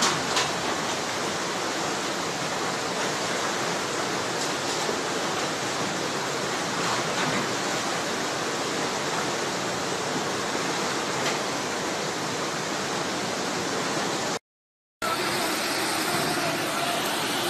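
Floodwater rushing and churning in a steady, even wash of water noise. The sound drops out completely for about half a second near the end, then similar rushing water continues.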